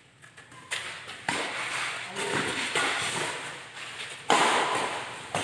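Badminton rackets striking a shuttlecock in a doubles rally: four sharp hits, two close together near the start and two more later, each echoing off the metal walls of the shed.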